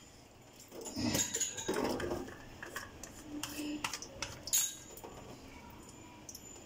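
Kitchen utensils and dishes clinking and clattering: a run of sharp clicks and knocks from about a second in until about five seconds in.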